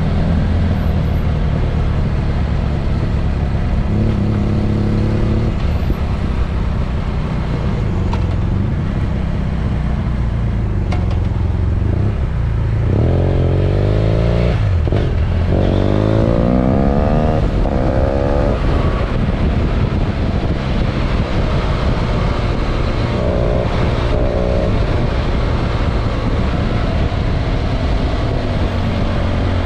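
BMW F800 GS parallel-twin engine running under the rider. About halfway through it accelerates hard, its pitch rising in two pulls through the gears, then settles back to a steady cruise.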